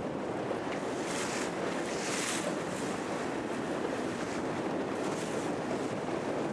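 Wind buffeting the microphone and water rushing and slapping along a moving boat's hull in choppy water, with a few brief hissing splashes of spray.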